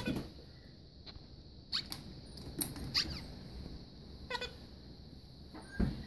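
Caged white-tailed jay working at a beaded plastic toy with its beak: several sharp clicks and short squeaks, unevenly spaced.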